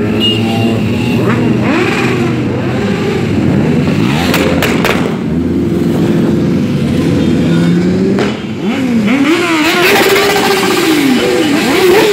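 A steady stream of motorcycles riding past one after another, their engines rising and falling in pitch as each bike goes by, with several quick revs near the end.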